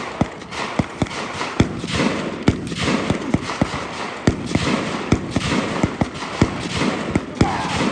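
Gunfire on a shooting range: a string of sharp shots at irregular spacing, about two to three a second, some louder than others.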